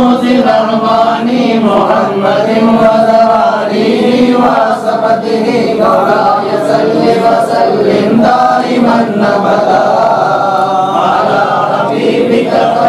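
A group of men's voices chanting together without instruments, a devotional mawlid recitation read from books. The chant runs on continuously with a rising and falling melodic line.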